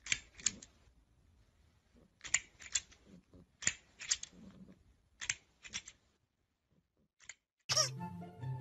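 Green plastic crocodile grabber toy clacking its jaws shut, sharp clicks in clusters of two or three about every second and a half. Music with a steady beat starts near the end.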